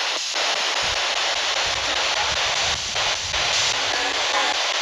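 Spirit box sweeping the FM band: a loud, steady hiss of radio static with brief breaks as it jumps between stations. A low rumble runs under it from about a second in.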